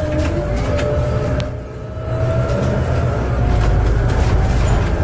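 Scania Citywide CN280UB city bus's gas engine and drivetrain rumbling low while driving, heard from inside the cabin near the front, with a faint steady whine over it. The sound dips for a moment about two seconds in, then comes back louder.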